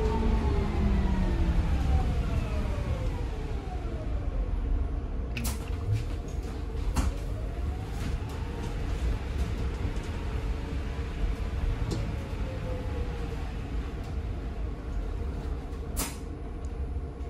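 Interior of a BYD electric bus with two in-wheel traction motors: the motor whine falls in pitch as the bus slows, rises as it speeds up again, then falls once more. It runs over a steady low road rumble, with a few sharp clicks and knocks from the bus body.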